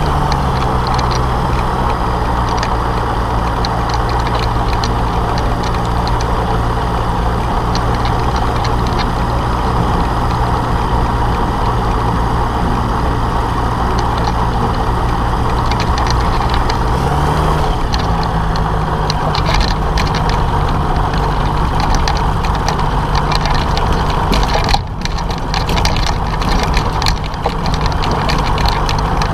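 Microlight trike's engine and pusher propeller running steadily as the trike taxis along a dirt strip. The engine note rises in pitch about two-thirds of the way through and holds there, and briefly dips in loudness near the end.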